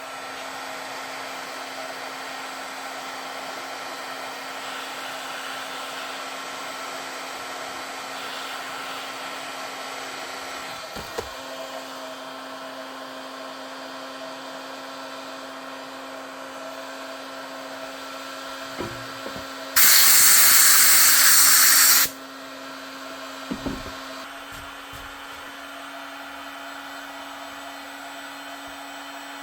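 Heat gun running steadily with a motor hum, softening kydex so it can be pressed back into shape. About two-thirds of the way through, a loud rushing hiss lasts about two seconds, and there are a few light knocks.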